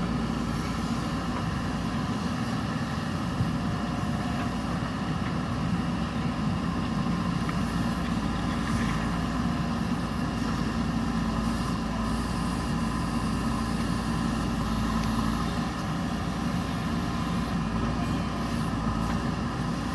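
JCB backhoe loader's diesel engine running steadily at a constant speed.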